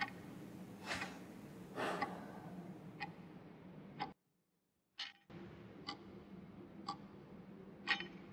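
Clock ticking, about one tick a second, with a second-long gap of dead silence about four seconds in before the ticking resumes.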